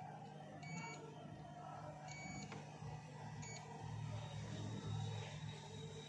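Multimeter continuity buzzer giving three short, high beeps as the probes touch points on a phone circuit board, the sign of a short circuit on the board. A steady low hum runs underneath.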